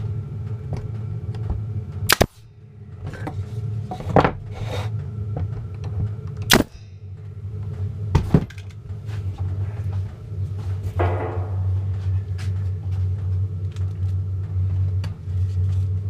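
Nail gun firing nails into the joints of a wooden beehive frame: several sharp shots a few seconds apart, two of them in quick succession, with quieter knocks from handling the frame in between.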